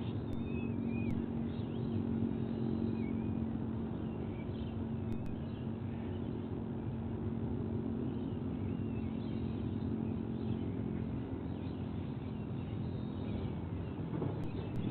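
Steady low outdoor rumble with a humming tone that fades out about ten seconds in, and faint short bird chirps scattered throughout.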